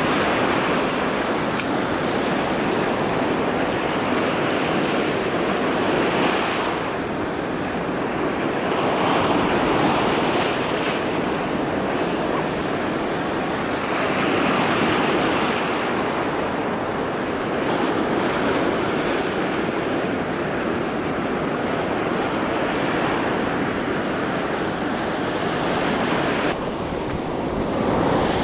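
Sea surf breaking and washing up a sandy beach close by, a steady rush that swells every few seconds as each wave comes in.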